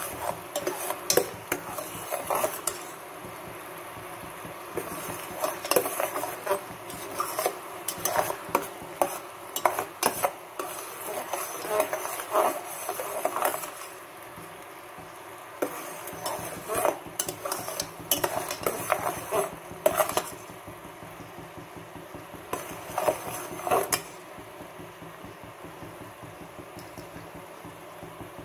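Metal spoon stirring black sesame seeds bound with palm jaggery syrup in a pan, scraping and clinking against the pan in irregular bursts over a faint steady hiss. The scraping eases off in a few stretches and is mostly quiet near the end.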